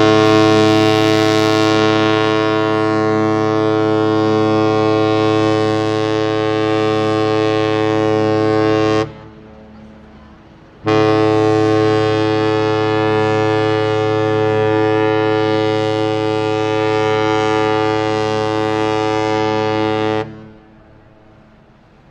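A large ship's horn sounding two long, steady blasts. The first is already sounding and stops about nine seconds in. After a pause of about two seconds, the second blast runs for about nine seconds more.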